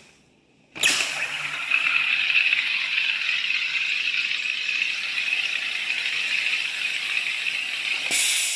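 SodaStream carbonator injecting CO2 into the bottle with the top button held down, just after its pressure relief valve spring was tightened. A loud, steady whistling hiss cuts in about a second in, and near the end it turns into a sharper, higher hiss.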